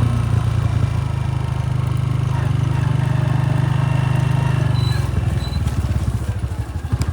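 Motorcycle engine running steadily under way. About five seconds in it eases off and slows toward idle, its separate firing pulses becoming audible.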